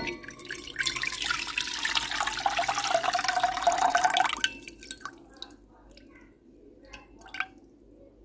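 Water poured from a glass jar through a perforated lid into a stainless steel pot, splashing steadily for about four seconds, then thinning to a few drips and light clinks. A sharp clink of the lid on the jar comes right at the start. This is the steeping water being drained off jarred grapes during marinating.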